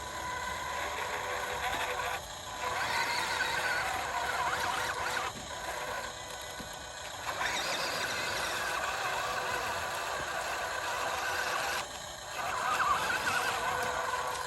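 Radio-controlled model trucks' small electric motors and gearboxes whining as they drive, the sound dropping out briefly three times.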